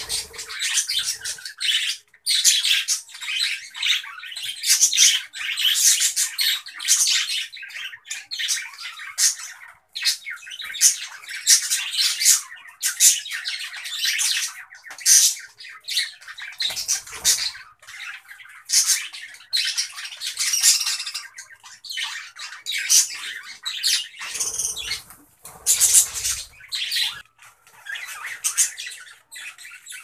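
Budgerigars chattering and squawking: a dense run of short, high-pitched calls with brief pauses. Twice a short low rumble sounds, about halfway through and near 25 seconds.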